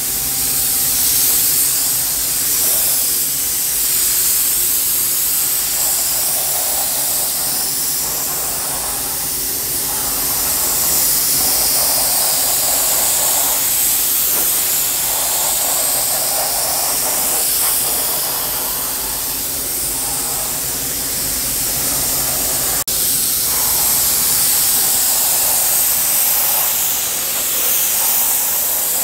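Gravity-feed compressed-air paint spray gun hissing steadily as it lays clear coat on a car body, the hiss swelling and easing with the gun's passes. A steady low hum runs beneath.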